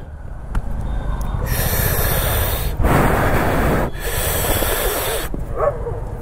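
Heavy breathing close to the microphone from a motorcyclist who has just come off his bike: three long breaths in a row, over a low steady rumble.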